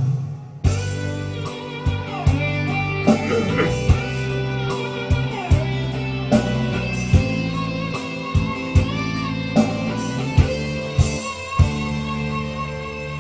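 Karaoke backing track playing a rock ballad's instrumental intro: electric guitar over a drum kit with regular drum hits. It starts about half a second in.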